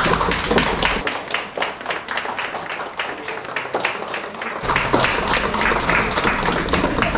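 A small group of people clapping their hands, many quick overlapping claps.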